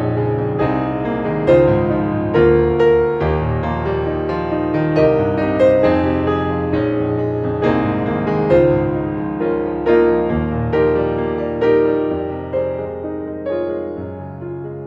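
Solo piano music: gentle notes struck one after another, each ringing and decaying, growing a little quieter near the end.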